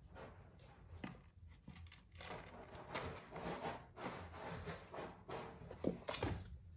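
Two 4.5-week-old kittens play-fighting on a hard floor: a run of soft scuffles and scrapes from their paws, with a louder knock about six seconds in.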